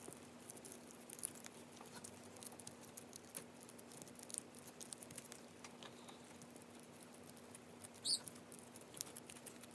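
Faint, rapid sticky clicks and crackles of tacky duct-tape adhesive putty, mixed with shaving cream, being stretched and pulled apart between fingers. A steady faint hum runs underneath, and a brief high squeak sounds about eight seconds in.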